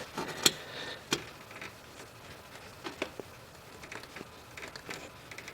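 Faint scattered clicks and light knocks from a hot spin-on oil filter being worked off by gloved hands during an oil change.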